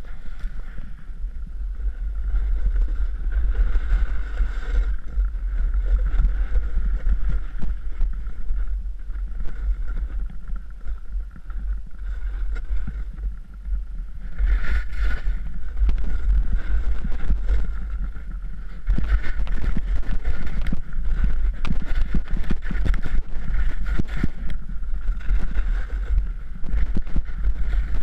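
Wind buffeting a worn action camera's microphone as a snowboarder rides downhill, over the scrape and hiss of the snowboard sliding on snow. It gets louder in the last third.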